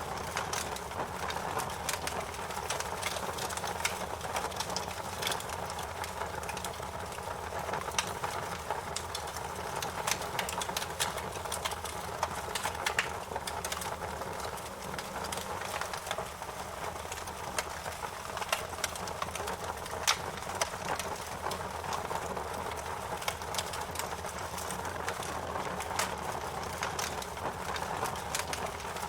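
Wood fire burning in a fireplace, crackling with frequent sharp pops over a steady rushing of the flames.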